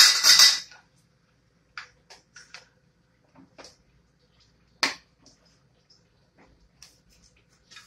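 Plastic food containers and lids being handled on a stovetop: a short, loud rustling burst at the start, then scattered light clicks and taps, with one sharper click about five seconds in.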